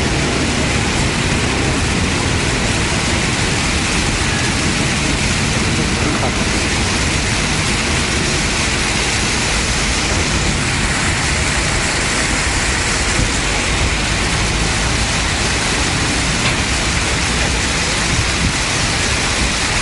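Steady rushing hiss of water jets spraying up from a ground-level fountain.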